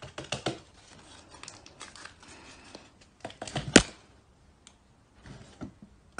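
Light clicking taps of a stick on a cardboard box lid, then one loud sharp knock a little before four seconds in as a cat pushes up out of the box, followed by a few softer taps.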